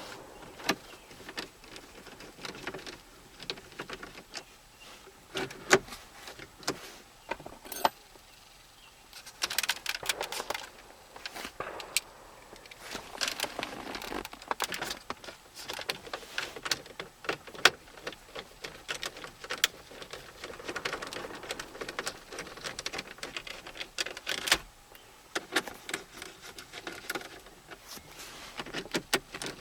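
Irregular clicks, taps and scraping as screws are driven by hand and plastic dash trim is handled and fitted back in place.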